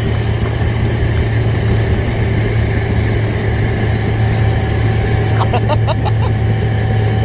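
Honda 150 hp four-stroke outboard motor running steadily at towing speed, a constant low hum over the rush of the boat's wake and wind.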